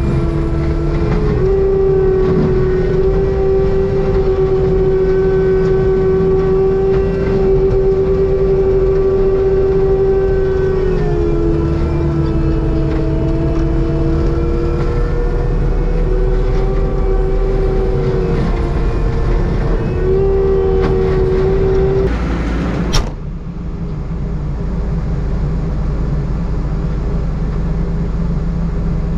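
Forestry mulcher grinding a brush pile: a steady machine tone over a low engine rumble, the pitch dipping and recovering as it works. About 23 seconds in there is a brief sharp noise, then the tone drops out, leaving the engine rumbling on its own.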